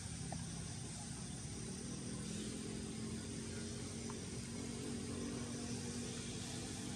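Steady outdoor background rumble and hiss with a faint low engine drone from a distant engine, growing a little stronger partway through.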